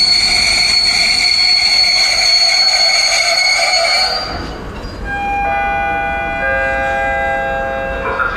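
Passenger train's wheels and brakes squealing in a loud, steady high screech as it pulls into the platform, dying away about four seconds in. Then the station's announcement chime sounds: several sustained electronic notes starting one after another, leading into a public-address announcement.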